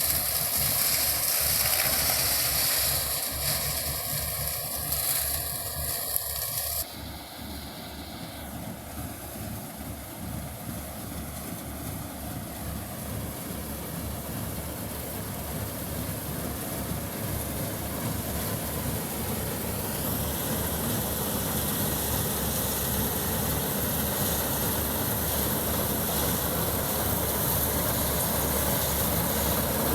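Combine harvester engine and machinery running steadily. The sound changes abruptly about seven seconds in, dropping in level, then slowly builds back up.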